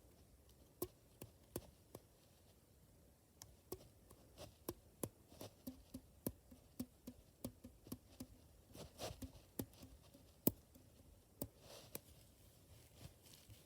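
The stretchy strings of a string ball fidget toy being plucked like a guitar: an irregular run of light snaps and taps, some with a short low twang, busiest from about four seconds in.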